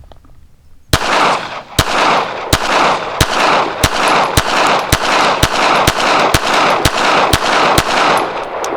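A Ruger Security-380 .380 ACP pistol firing a steady string of about a dozen shots, roughly one every half to three-quarters of a second, starting about a second in. The gaps between shots are filled with a rolling echo that dies away after the last shot.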